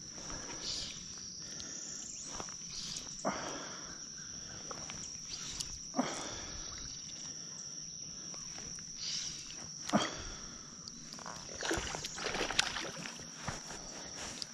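Steady high-pitched insect drone, with a few short water splashes close by.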